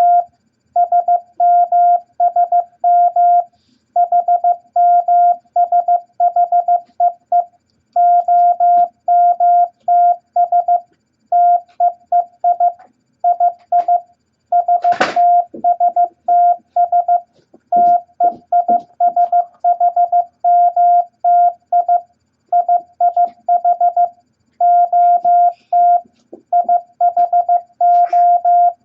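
Morse code practice tone keying random letters from the beginner set E, I, S, H, T, M and O at 15 words per minute. It is a single mid-pitched beep, switched on and off in short dots and long dashes with gaps between letters. A sharp knock sounds about halfway through, and a few faint low thuds follow.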